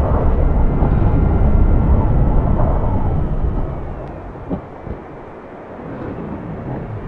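A deep, noisy rumble, loud for the first three seconds and then fading away about four seconds in, with one sharp click about halfway through.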